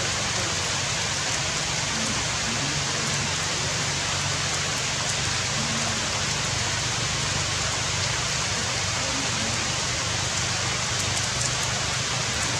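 Steady rain falling on dense forest foliage, an even hiss with a few faint drop ticks.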